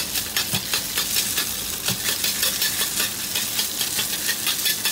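Minced pork and ginger sizzling in a wok over a low flame, with a metal wok ladle scraping and clicking against the wok many times as it stirs.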